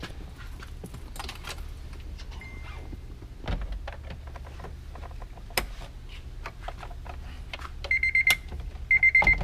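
Scattered clicks and knocks of handling inside a Honda Element, then the car's warning chime beeping twice near the end, a steady high tone each time.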